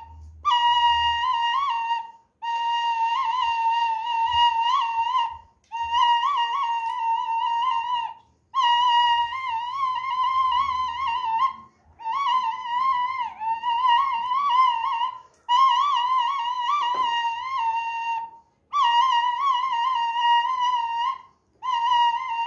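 A bamboo flute (bansuri) playing a melody in phrases of two to three seconds, each broken off by a short pause for breath, with ornamented, wavering notes.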